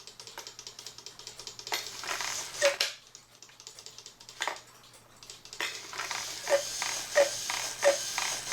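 E. Schmeckenbecher cuckoo clock's mechanism clicking rapidly, then its bellows puffing in breathy hisses with only weak, short whistle notes, twice, about 2 s in and again from about 5.5 s on. The cuckoo call is faulty: the bellow tops are not weighted enough to work the whistles properly.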